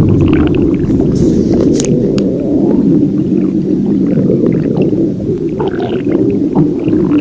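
A person's stomach growling: a loud, continuous, low gurgling rumble with faint higher squeaks scattered through it.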